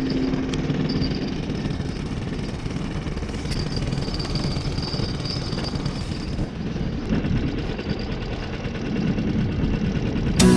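A boat's motor running steadily as the boat moves, a dense, even rumble.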